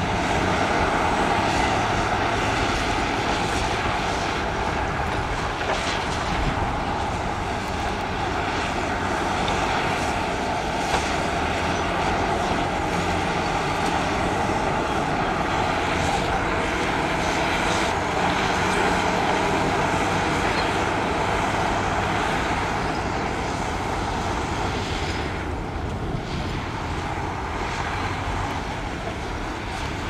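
Heavy diesel construction machinery running steadily, a continuous engine drone with faint intermittent clanks.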